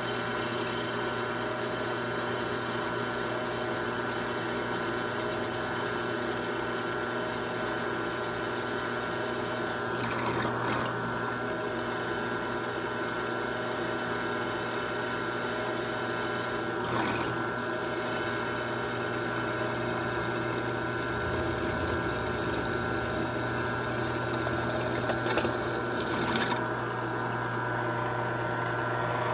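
Drill press running steadily as its freshly sharpened four-facet twist bit drills into a metal plate held in a vise. This is a test cut of the new grind. Near the end there are a couple of light knocks, and the high hiss stops.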